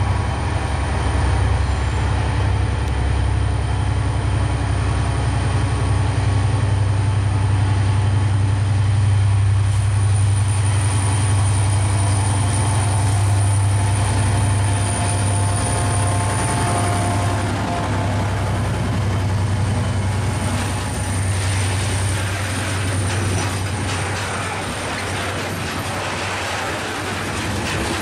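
Diesel-electric freight locomotive hauling a train of covered hopper wagons past. Its engine hum is loudest for most of the time, with a thin high wheel squeal partway through. Near the end the hum fades and the rumble of the wagons' wheels rolling over the rails takes over.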